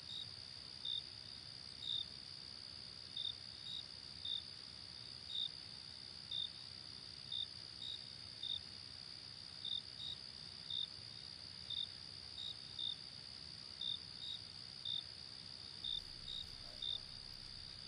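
Crickets at night, faint: a steady high trill with short chirps about once a second over it.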